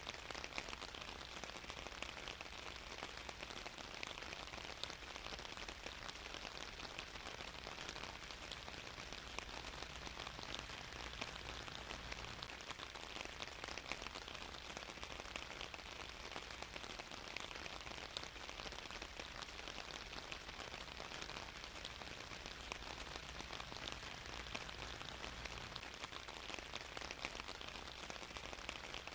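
Steady rain falling on a surface: an even hiss of many small drops with fine pattering, no thunder.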